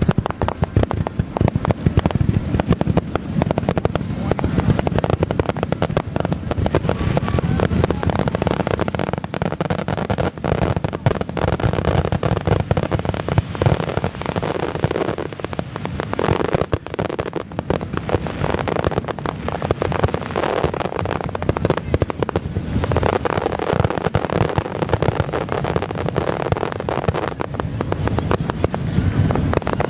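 Fireworks display: aerial shells bursting in a rapid, unbroken barrage of bangs with no pauses between them, the grand finale.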